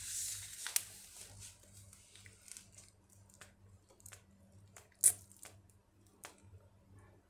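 Handling noise from a phone held close to its microphone: scattered clicks and small rustles, with one sharp click about five seconds in, the loudest, and a brief hiss at the start.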